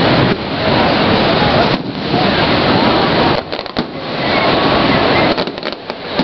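Steady rushing roar of Niagara Falls, dipping briefly twice.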